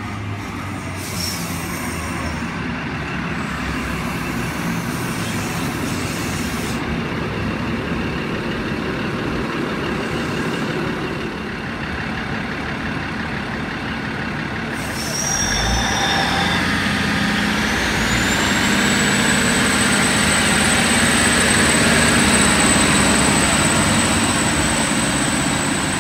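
Endeavour diesel railcar set running along the platform, its diesel engines running steadily. About halfway through the engines get louder and a high whine rises, then holds steady as the train pulls away.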